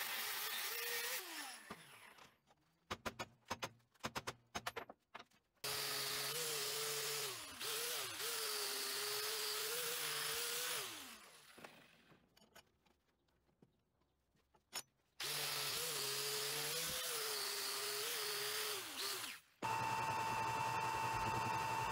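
Angle grinder with a cut-off disc running into a steel tube, then spinning down, followed by a string of sharp clicks and knocks. The grinder is started twice more, now fitted with a wire cup brush scrubbing surface rust off the tube, and each run ends with the pitch falling as it spins down. Near the end it changes suddenly to a metal lathe running with a steady hum.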